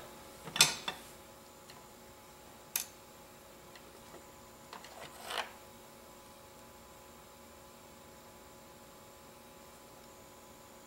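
A few light knocks and clicks from an airsoft gearbox shell half being handled on a work surface, in the first six seconds. After that there is only a faint steady electrical hum.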